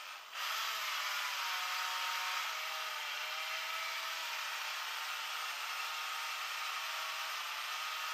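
Cordless screwdriver motor whirring as it spins a long drill bit, jumping up in level about a third of a second in and then running steadily, its pitch shifting slightly about two and a half seconds in.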